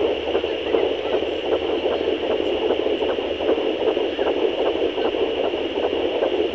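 Fetal heartbeat at 13 weeks picked up by a handheld pocket fetal doppler and played through its speaker: a rapid, even train of pulses over a constant hiss.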